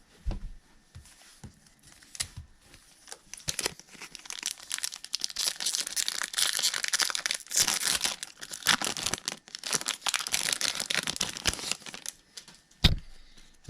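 Wrapper of a Topps Holiday baseball card pack being torn open and crinkled, with scattered rustles and clicks at first, then a long stretch of dense crinkling, and a single knock near the end.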